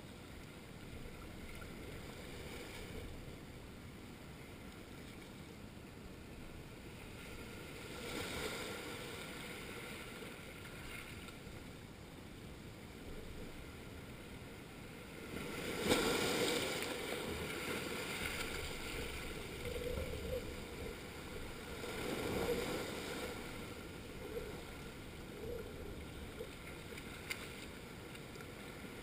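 Small waves washing in over a flat coral-rock shoreline: a steady wash of surf with three stronger surges as waves break and run in, the loudest about halfway through.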